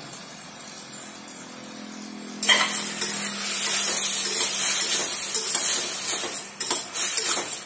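Soaked rice being stirred and fried in oil and ghee in a stainless steel pressure cooker: a steel spatula scrapes and clinks against the pot over a sizzle, starting suddenly about two and a half seconds in.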